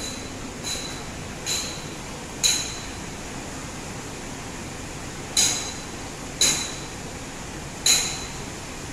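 A metal tool striking the steel multi-piece rim of a large earthmover tire: six sharp clinks that ring briefly, spaced unevenly, the later ones loudest.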